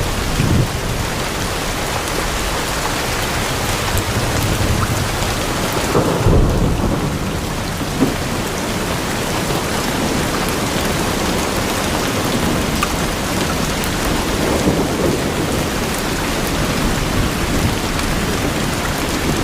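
Steady heavy rain, with rolls of thunder rumbling low about six seconds in and again near fifteen seconds.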